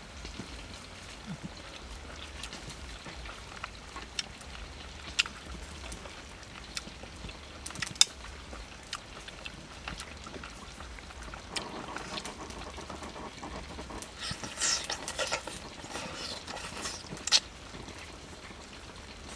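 Eating sounds: wooden chopsticks clicking now and then against a coconut-shell bowl, the sharpest click about eight seconds in, and a cluster of wet slurping and chewing in the second half as strands of stewed pork intestine are sucked up.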